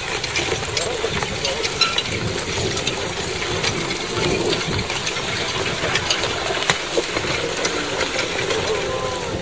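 Harness and trace chains of a plough team clinking and jingling as the pair of heavy horses pulls, many small metallic clicks over a steady outdoor noise.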